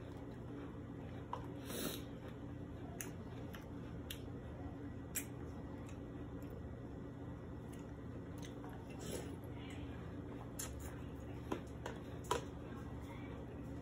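A person eating cereal in milk with a metal spoon: quiet chewing, with scattered light clicks of the spoon against a plastic tub, over a faint steady hum.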